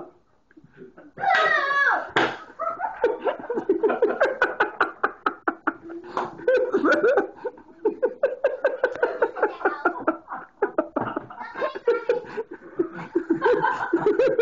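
People laughing hard in rapid bursts, mixed with some talk, after a loud whoop about a second and a half in.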